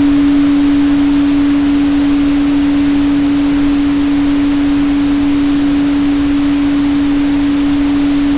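A steady 285 Hz pure tone held without change, under an even pink-noise hiss.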